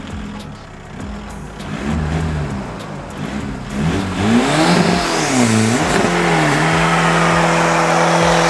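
Modified big-turbo 1.9 TDI diesel engine of a VW Polo, revved up and down several times on the line, then held at steady high revs as the car launches with wheelspin. A loud rushing noise builds from about four seconds in.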